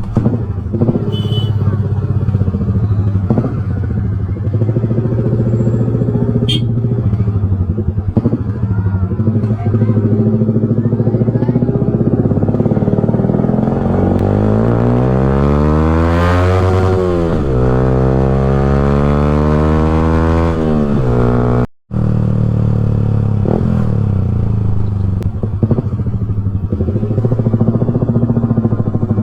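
Yamaha R15 single-cylinder engine running through an Akrapovic full-system exhaust, idling steadily. About halfway through it revs up over a few seconds and falls back to idle, and the sound cuts out for an instant shortly after.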